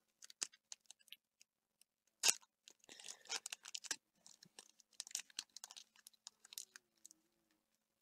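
Pokémon booster pack's foil wrapper being handled and torn open, crinkling and rustling in short bursts with a sharp snap about two seconds in, as the cards inside are worked loose.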